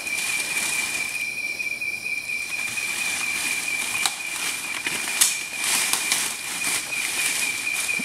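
A night insect calling in one steady, unbroken high-pitched trill, with scattered rustles and snaps of brush from someone moving through the undergrowth.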